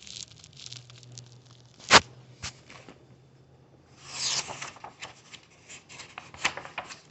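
Paper rustling and handling noise from a storybook being turned to the next page. There is a sharp knock about two seconds in, a papery rustle a little after four seconds, and several light clicks and taps.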